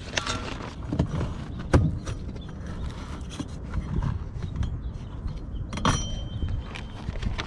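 Hand tools clicking, knocking and creaking against a car's plastic bumper and wheel-well trim as it is taken apart, an irregular string of small knocks with a sharper one near the start.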